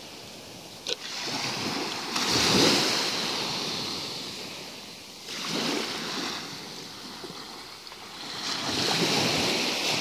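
Small Black Sea waves breaking and washing up onto a sand-and-shell beach, the surf swelling three times, a few seconds apart. A brief click about a second in.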